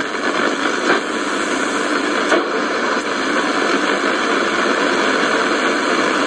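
Steady shortwave static hiss from the speaker of a Sony ICF-F12S portable radio, tuned between stations, with a few faint crackles.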